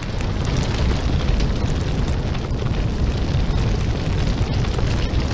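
Fire burning: a loud, steady low rumble with scattered crackles.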